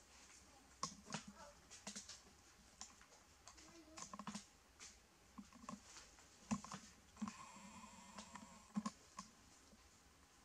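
Light, irregular clicks and taps of a puppy's and a baby monkey's claws and feet on a tile floor as they scuffle, with a faint high whine for a second or two in the second half.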